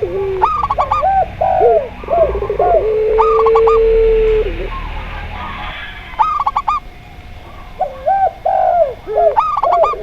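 Zebra dove, spotted dove and ring-necked (puter) dove cooing together in overlapping calls. Quick clusters of high, trilled coos come back about every three seconds among lower hooked coos, and one long low coo is held for about a second and a half.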